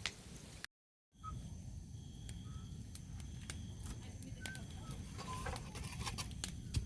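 Quiet rural outdoor ambience: a low rumble, a steady high-pitched hum and a few short bird-like chirps, with scattered faint clicks. A moment of dead silence about a second in.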